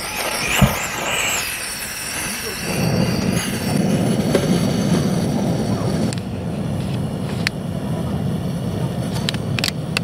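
Two sharp clicks in the first second, then a Kovea camping gas stove's burner running with a steady low roar from about three seconds in, with a few light clicks near the end.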